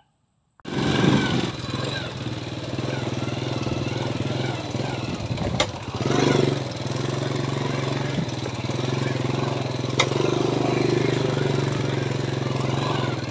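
Motorcycle engine running steadily while riding, with wind and road noise. It starts abruptly about half a second in, and two sharp clicks come about midway and a few seconds later.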